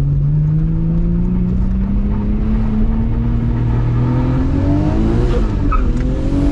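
Nissan Skyline R32 GT-R's RB26DETT straight-six with a big HKS T04R single turbo, heard from inside the cabin while accelerating: the engine note climbs steadily for about four seconds, dips briefly about five seconds in, then climbs again.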